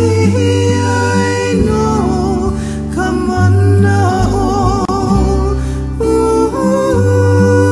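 Background music: a song with a singing voice, sung with vibrato, over plucked-string accompaniment and sustained bass notes.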